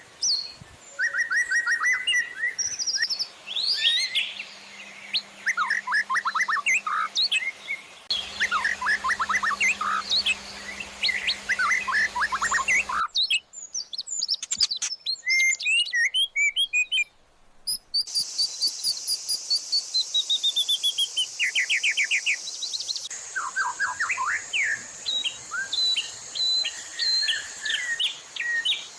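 Songbird recordings spliced one after another: fast chirps, rapid trills and sharp whistled phrases. The background noise changes abruptly every few seconds where one clip gives way to the next. About two thirds of the way through comes a long series of notes falling steadily in pitch.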